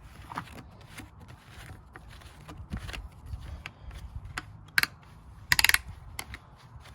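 Plastic clicks and rattles of a jerry can's cap and spout being handled, loudest as one sharp click a little under five seconds in and a short rattle just after. Low wind rumble underneath.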